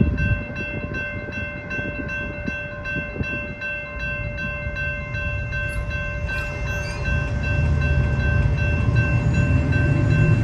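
Railroad crossing warning bell ringing steadily over the rumble and clicking of a long train's wheels, which die away about four seconds in. Near the end the crossing gates begin to rise and a low rumble of car engines builds as road traffic moves off.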